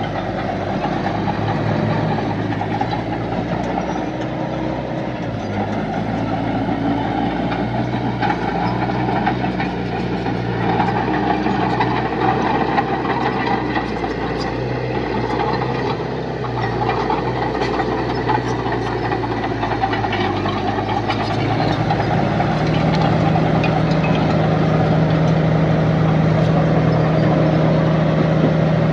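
Heavy diesel engine of earth-moving machinery running steadily, with scattered knocks and clanks. About 22 seconds in, the engine note rises and holds higher and a little louder.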